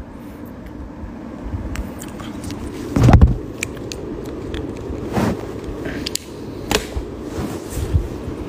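Handling noise of a phone being moved about: a dull thump about three seconds in, then a few lighter knocks, over a steady background hum.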